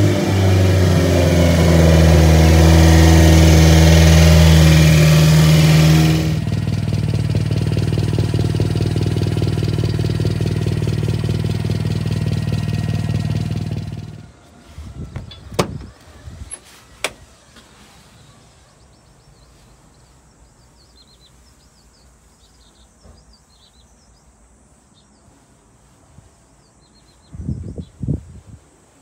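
1995 Subaru Sambar truck's small four-cylinder engine running at raised revs, then settling to a steadier, lower running speed. The engine sound falls away about halfway through, leaving faint background with a couple of sharp clicks and a few low knocks near the end.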